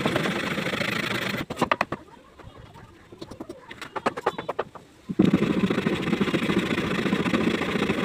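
Hand saw cutting through a wooden shuttering plank in two spells of steady sawing, with a few sharp knocks and taps of wood in the pause between them.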